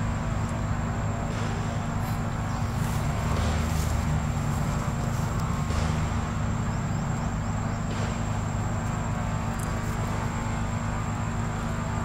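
Steady low motor drone, unchanging, with a thin constant high whine above it and a few faint chirps.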